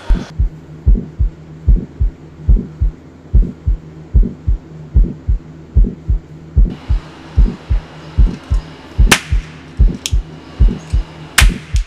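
Heartbeat sound, a steady low lub-dub at about 70 beats a minute, with three sharp cracks near the end.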